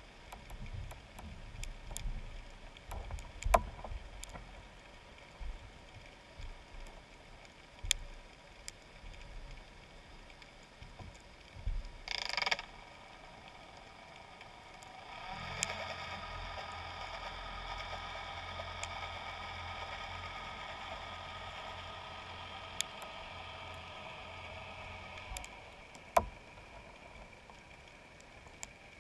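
Boat motor heard underwater: a steady hum with several tones that starts about halfway through and stops about ten seconds later. Scattered sharp clicks and knocks come before and after it.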